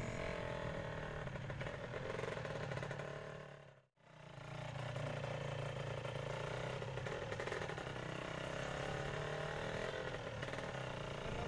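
A motor vehicle's engine running steadily while driving, a low drone with a rough mechanical edge. It fades out and back in about four seconds in.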